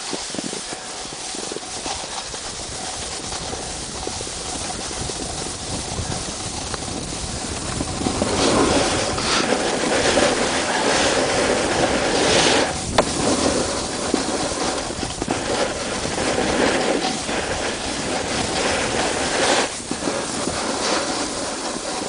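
Rushing, rumbling noise of wind and handling on the camera's own microphone. It gets louder about eight seconds in and has a few scattered knocks.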